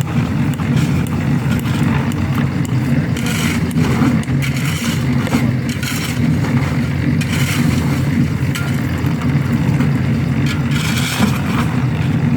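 A construction machine's engine running steadily, with irregular scraping and clatter over it.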